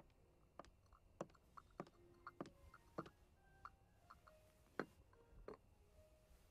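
Faint, scattered clicks and light clinks of tableware, about one or two a second at irregular spacing, some with a short ringing note, over near silence.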